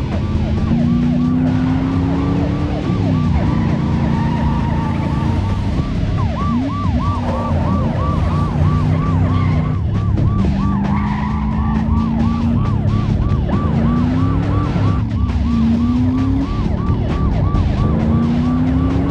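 Police car siren in a fast yelp, over car engines running hard, their note climbing slowly and dropping back several times.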